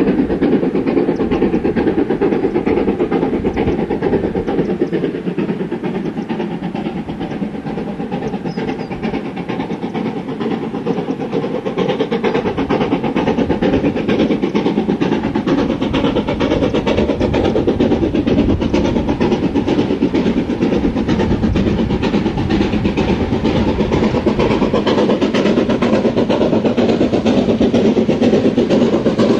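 LMS Stanier 8F 2-8-0 steam locomotive No. 48151 working hard up a climb with a passenger train: a steady, fast run of exhaust beats over the rumble of the train.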